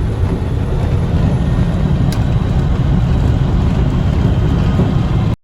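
Semi truck driving at highway speed, heard from inside the cab: a steady low engine and road rumble, which cuts off suddenly near the end.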